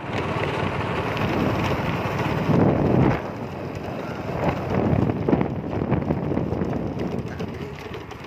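Wind buffeting the microphone of a camera carried on a moving vehicle, with the vehicle's travel noise beneath it. The buffeting comes in gusts, with the strongest about two and a half to three seconds in.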